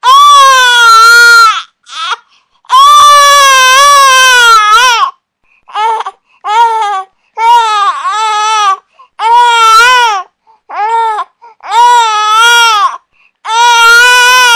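Infant crying: a run of loud, high wails, each with a rising-and-falling pitch and short silent gaps between. The first two wails last about two seconds each, and shorter ones of about half a second to a second follow.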